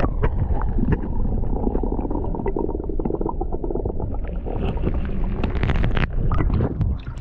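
Muffled rumble and sloshing of river water heard from a camera dipped under the surface, with many small clicks and knocks as a gloved hand reaches among the stones and gravel of the riverbed.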